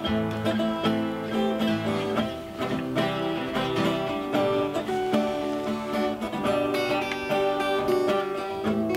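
Background music: acoustic guitar playing, with quick plucked and strummed notes.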